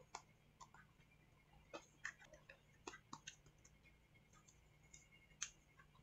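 Faint, irregular small clicks and ticks from a precision screwdriver backing out screws from a MacBook Air logic board.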